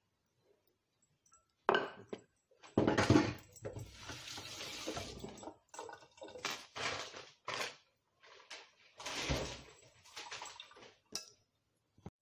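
Kitchen handling noise: irregular clatters and knocks of a glass bowl and utensils being moved about on the counter, with a few sharp clicks.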